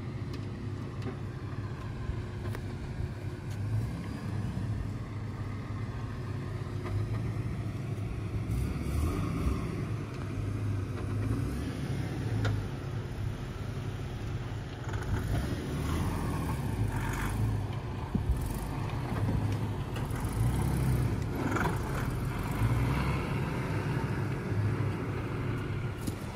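First-generation Nissan Xterra's engine running at low speed as it crawls through a rutted sand washout, the revs swelling and easing as throttle is fed in and backed off.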